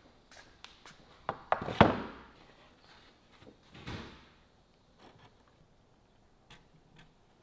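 A few sharp wooden knocks, then a heavy thump with a short ring about two seconds in and a softer thud about four seconds in, followed by faint clicks: pieces of wood being handled and set down.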